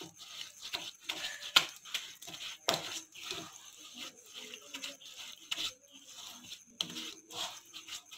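Silicone spatula stirring and scraping a gritty paste of coarse crushed red chilli and coriander with water around a ceramic bowl: irregular scratchy scrapes with a few sharper clicks.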